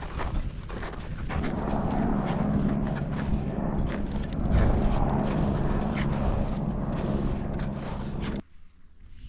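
Footsteps crunching in firm snow at a walking pace, with wind buffeting the microphone, heaviest in the middle. The sound cuts off suddenly near the end.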